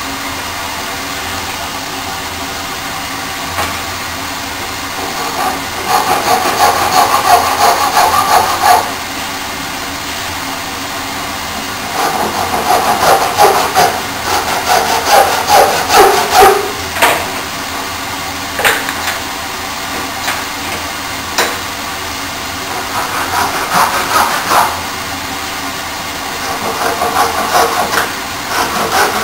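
Brass-backed hand saw cutting wood, rasping through the cut in four bouts of back-and-forth strokes with pauses between, over a steady background hiss. A few sharp knocks come between the second and third bouts.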